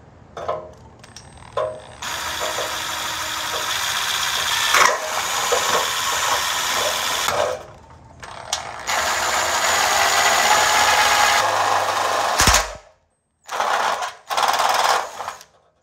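A power drill bores through a thin sheet-metal exhaust heat shield, first a pilot hole and then a larger bit widening it. There are two long runs of drilling with a pause between, a sharp knock, then two short bursts near the end.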